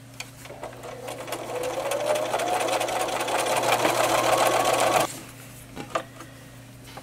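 Bernina activa 240 electric sewing machine stitching a seam through a towel and a fabric border. The fast stitching rises in pitch as the machine speeds up over several seconds, then stops abruptly about five seconds in.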